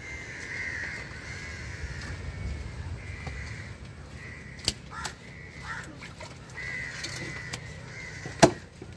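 Crows cawing repeatedly. A sharp knock comes a little before halfway, and a loud chop of a cleaver on the wooden block comes near the end.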